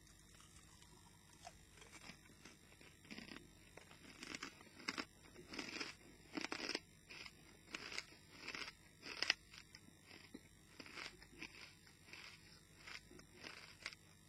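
A person crunching and chewing a mouthful of four pork scratchings at once, with irregular crisp crunches that come thickest in the middle and thin out towards the end.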